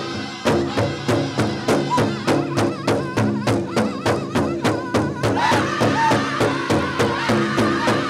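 Powwow drum group playing a chicken dance song: several drummers striking one big drum in a steady beat, about three strokes a second, with the singers' voices over it. About five seconds in the singing grows louder and higher.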